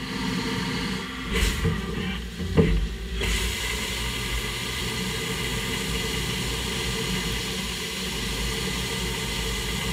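CNC lathe cutting metal under flood coolant: a steady hiss of spraying coolant over the machine's running whine, with a brief knock about two and a half seconds in.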